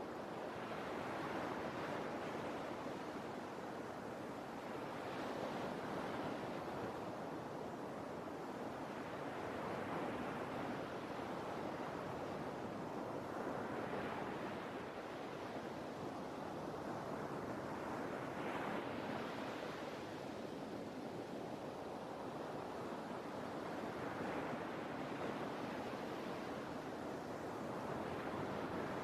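Sea waves washing onto the shore, a steady rush of surf that swells and falls back every four or five seconds.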